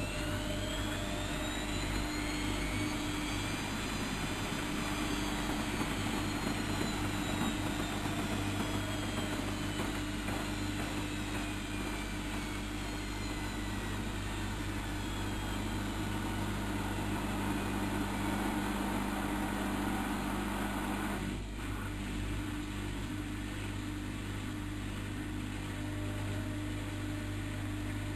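Bauknecht WAK7760 washing machine running: its motor whine rises in pitch over the first few seconds, then slowly falls, over a steady hum.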